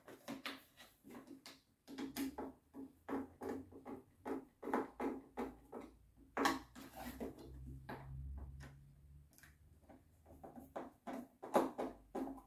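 Hand Phillips screwdriver driving screws into the plastic frame of an electric pressure washer: a run of irregular clicks and creaks, about two or three a second.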